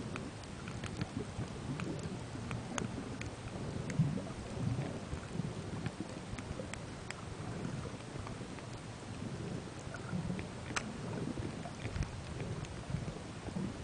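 Muffled underwater sound picked up through a camera's waterproof housing: a continuous low rumble of moving water, dotted with faint scattered clicks.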